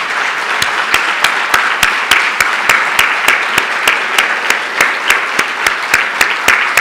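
Audience applause filling the hall, with one man's claps close to a lectern microphone standing out over it as sharp, even claps about three a second, starting about half a second in.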